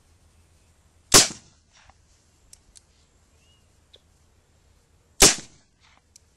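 .32 Smith & Wesson revolver firing two shots about four seconds apart, with a few light clicks in between. The original 1899 cartridges go off: the old ammunition still fires.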